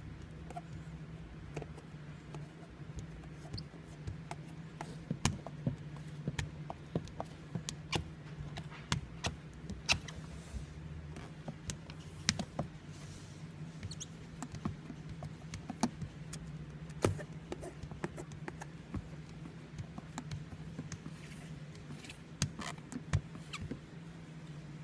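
Squeegee and hand working window tint film against the inside of a wet windshield, giving irregular sharp clicks and squeaks over a steady low hum.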